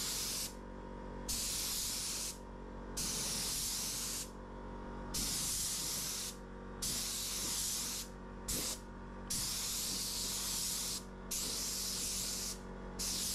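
Gravity-feed spray gun spraying paint in about ten short hissing bursts of a second or so, with brief gaps between them. The passes are kept short because the undersized air compressor cannot hold pressure, so the painter stops between passes to let it build back up.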